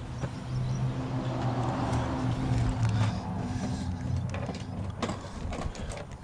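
A motor vehicle's engine running steadily, swelling in the middle and easing off again, with a few light clicks in the second half.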